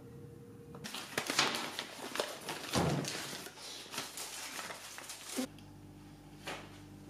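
Paper wrapper crinkling and tearing as fingers pick chocolate out of it, a dense run of crackles for about four and a half seconds. It stops abruptly about five seconds in, leaving a low steady hum with a couple of soft short sounds.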